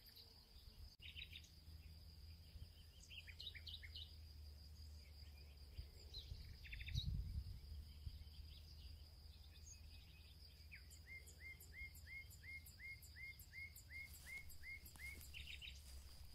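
Faint outdoor nature ambience: birds chirping in short scattered calls, then a quick run of about a dozen evenly repeated chirps near the end, over a steady thin high insect-like drone and a low rumble. A soft low swell about seven seconds in is the loudest moment.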